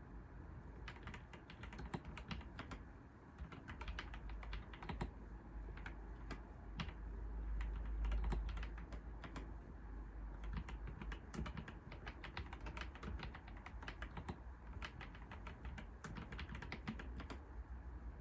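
Typing on a computer keyboard: irregular runs of fast keystroke clicks with brief pauses between bursts, over a low background rumble.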